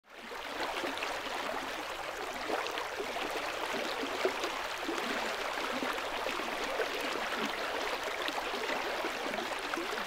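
A stream of running water babbling and splashing steadily, fading in at the start.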